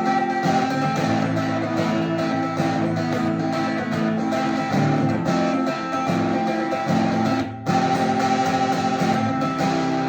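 Acoustic guitar fitted with an electric pickup, being played: plucked notes and chords run on without a stop, broken only by a short gap about two-thirds of the way through.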